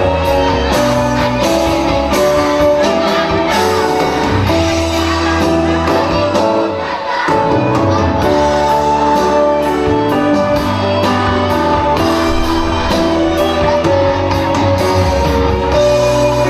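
Children's choir singing with accompanying music that keeps a steady beat.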